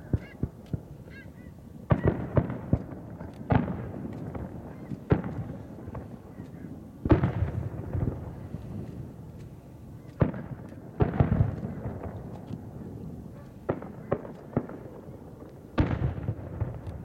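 Aerial firework shells launching and bursting: a series of sharp bangs at irregular intervals, some in quick clusters, each trailing off in a rolling echo. The loudest comes about seven seconds in.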